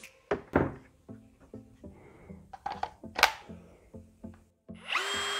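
A few handling clicks and knocks over quiet background music, then near the end an AEG 18 V brushless cordless drill-driver spins up quickly and runs unloaded with a steady high whine.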